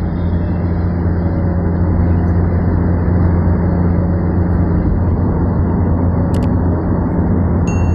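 Steady road and engine noise inside a car's cabin as it cruises on the highway, with a low hum throughout. A short double click comes about six and a half seconds in, and a brief ding near the end.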